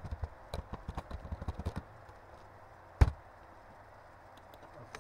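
Computer keyboard typing: a quick run of keystrokes for about two seconds, then a single much louder click about three seconds in.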